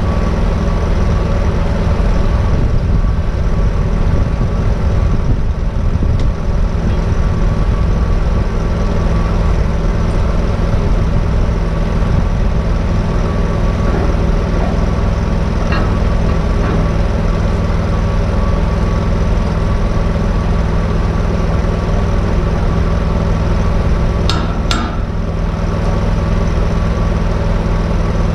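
Engine-driven welder running at a steady pitch while stick welding is under way.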